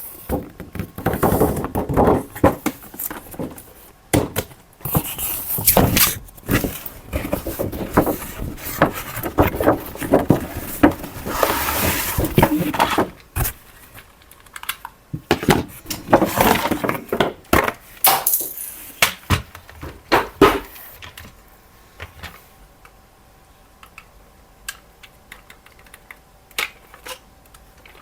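Irregular clicking, clattering and rustling of hard objects being handled, with rapid clicks and short scraping bursts. It dies down to a few faint clicks for the last several seconds.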